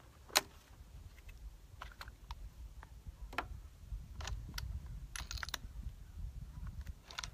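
Scattered light clicks and taps from hands handling a Thompson/Center Compass bolt-action rifle on its bench rest, the sharpest about half a second in and a quick cluster around five seconds, over a low wind rumble on the microphone.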